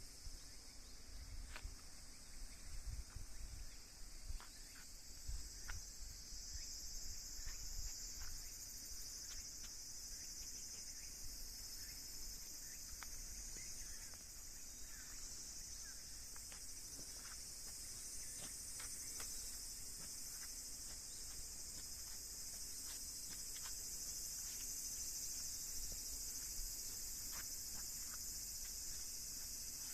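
Steady, high-pitched summer insect chorus, a little stronger after the first several seconds, with low rumbling in the first several seconds.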